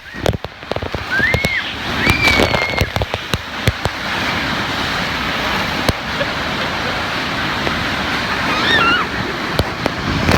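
Water rushing and splashing along a waterslide flume as riders slide down it, with scattered knocks and bumps. A child's high squeals come about one and a half to three seconds in and again near the end.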